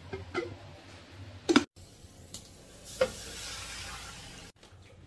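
A few light clicks and a sharp clunk, then water poured from a stainless steel pot into a non-stick wok: a knock of the pot, then a steady splashing pour for about a second and a half.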